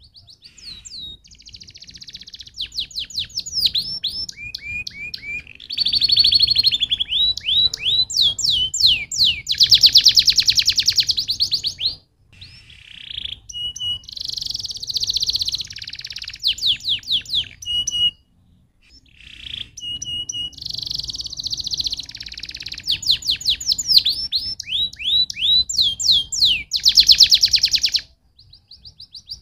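Domestic canary singing a long, fast song of rapid trills and quick downward-sweeping notes, in three long bouts with two brief breaks.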